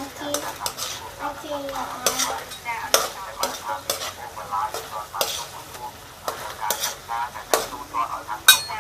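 Food frying in a pan, sizzling steadily, while a utensil stirs and scrapes, knocking against the pan in sharp irregular clicks.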